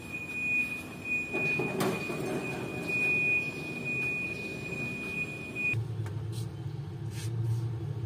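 Workshop machinery noise: a steady high-pitched whine that cuts off suddenly near six seconds in, giving way to a steady low hum, with a single sharp knock about two seconds in.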